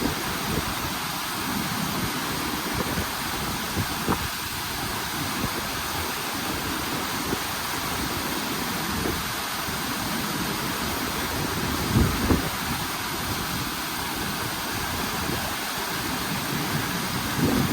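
Waterfall: steady rushing of falling water, with a few brief low thumps, the strongest about twelve seconds in.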